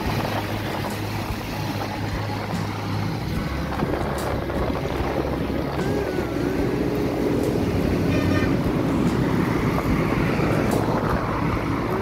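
Traffic and road noise heard from a moving vehicle on a busy road, with a low steady engine hum and wind on the microphone.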